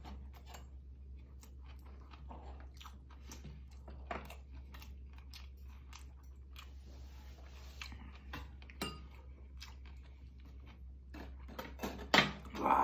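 A person chewing a mouthful of food, with many small wet mouth clicks. Near the end there is a single louder knock, like a dish touching the table.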